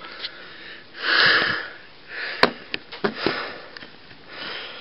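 A man breathing and sniffing close to a handheld camera's microphone, with a few sharp clicks and knocks from his hand on the camera as he turns it around.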